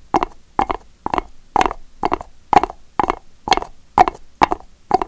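Horse hoofbeats on hard ground: an even clip-clop rhythm of about two paired hoof strikes a second.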